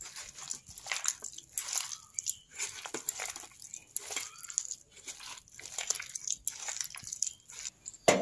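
A hand squeezing and kneading a wet chicken pakora batter in a steel bowl, with irregular squelches several times a second. A sharp click at the very end.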